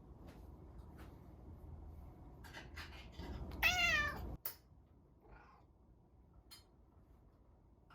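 Domestic cat meowing once, about halfway through: a single call that rises and then falls in pitch. A few faint clicks come before and after it.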